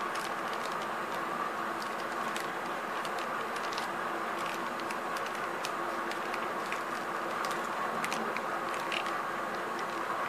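Crinkles and clicks of a clear plastic wrapper and case being handled, scattered irregularly over a steady background hum.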